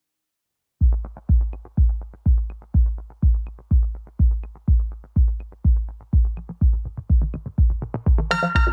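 Electronic background music: a deep kick-drum beat about two per second starts suddenly about a second in, and sustained synthesizer tones join near the end.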